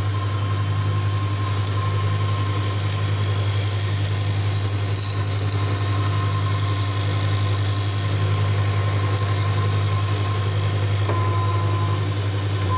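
Supore LE-520 automatic lens edger running as it edges a spectacle lens under water spray: its grinding-wheel motor makes a steady low hum with a hiss over it.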